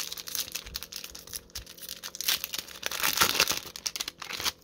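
Foil wrapper of a hockey card pack being torn open and crinkled. The dense crackle is loudest a little past the middle and stops just before the end.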